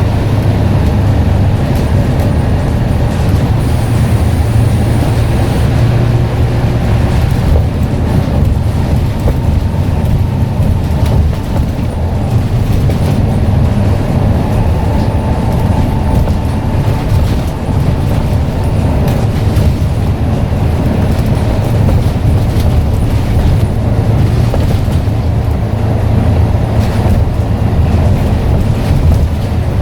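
Scania N94UD double-decker bus under way, its engine running with a steady low drone and road noise.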